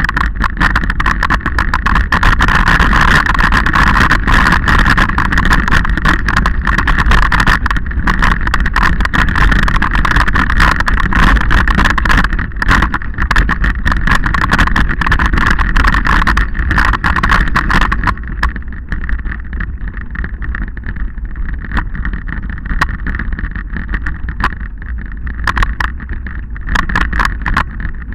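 Rattle and crunch of a ride over a rough stony track, the mounted camera jolting with constant clicking, with wind on the microphone. The noise eases a little about two-thirds of the way through.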